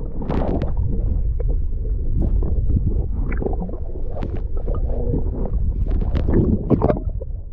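Muffled underwater rumbling and gurgling of moving water and bubbles around a submerged camera, with many short splashy crackles.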